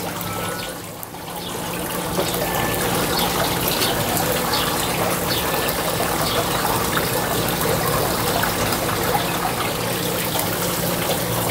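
Rib-eye steaks sizzling on the metal grate of a charcoal stove over a hot charcoal fire, with scattered crackles of spitting fat. The sizzle grows louder a second or two in, then holds steady.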